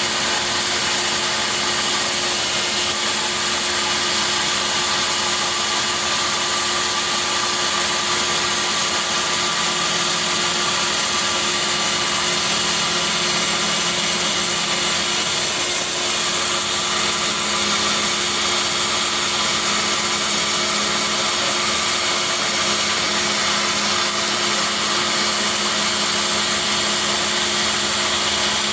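Bandsaw running steadily while its blade resaws a tiger maple board into a half-inch slab: an even sawing hiss over a constant machine hum.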